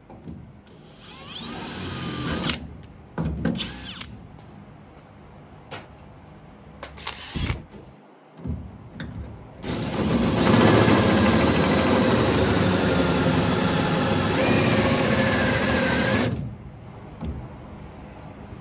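Cordless 18V drill with a spot weld cutter boring out a spot weld in a rusted steel truck-bed crossmember. A short spin-up about a second in, a few knocks and clicks, then a steady cut of about six seconds that stops abruptly near the end.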